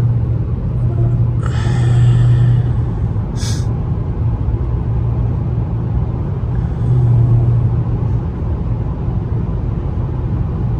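Car on the move: a steady low engine and road drone, with a couple of brief rushing hisses in the first few seconds.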